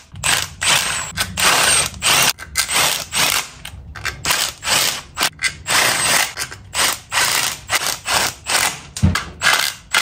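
Hand socket ratchet clicking in quick, repeated strokes, about three a second with short pauses, as it works bolts on the motorcycle engine.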